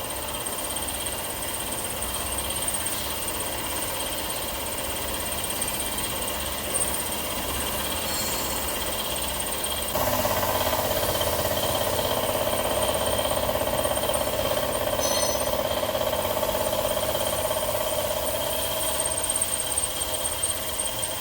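Hitachi Seiki VM50 CNC vertical mill roughing a steel mold with a 35 mm cutter at 1000 rpm, giving steady cutting noise with a high whine. About halfway through, the cutting grows louder.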